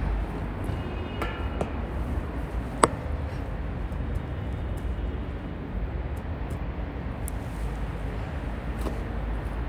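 Camera handling: a fur coat brushing over the microphone and a few knocks, the loudest a sharp click about three seconds in as the camera is set down, over a steady low rumble.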